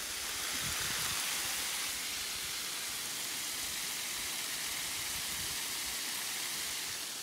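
Steady hiss of water spraying from garden watering, running evenly with no break.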